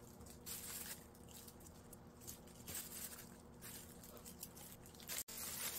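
A knife blade slicing through a thin sheet of sweet-potato dough and scraping over the plastic film and board beneath, in a few faint strokes over a low steady hum.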